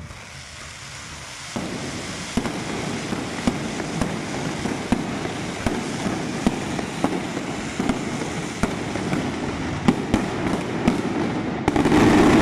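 Aerial fireworks barrage: dense crackling with many sharp bangs, stepping up about a second and a half in, and a much louder volley near the end.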